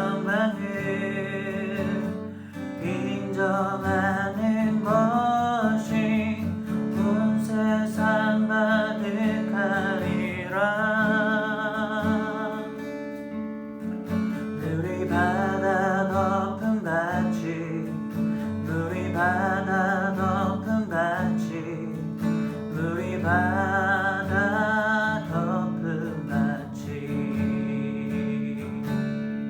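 Acoustic guitar strumming steady chords under a held melody line with vibrato, phrase after phrase.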